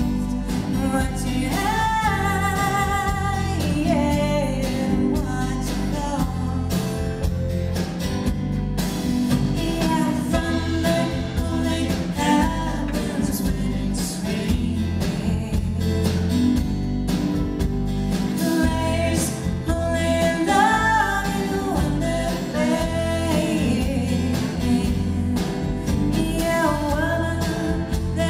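A live band performs a song: a woman sings lead over drums and guitars, in sung phrases with short gaps between them. The sound is picked up from the audience in the concert hall.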